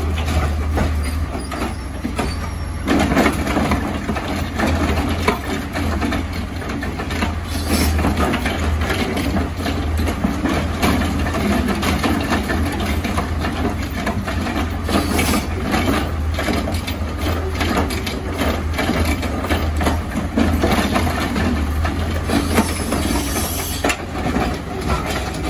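Garbage truck running with a steady low engine drone, overlaid by repeated clanks and knocks from the collection work.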